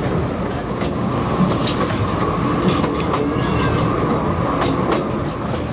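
2 ft gauge narrow-gauge passenger train running along the track, heard from on board: a steady rolling rumble with intermittent wheel clicks over the rail joints.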